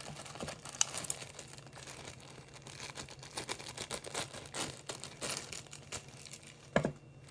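White plastic poly mailer bag crinkling as it is handled and cut open with scissors, with scattered small clicks and snips and one sharper click near the end.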